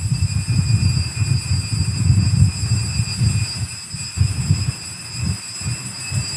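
Low, uneven rumble with a faint steady high-pitched whine above it.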